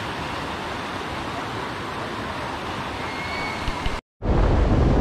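Shallow river rapids rushing steadily over rocks. About four seconds in, the sound cuts out for an instant and is replaced by louder wind buffeting the microphone.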